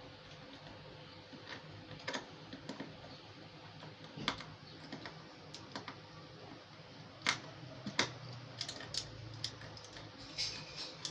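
Scattered light clicks and taps at an uneven pace, small parts being handled while a CNC laser engraver is assembled.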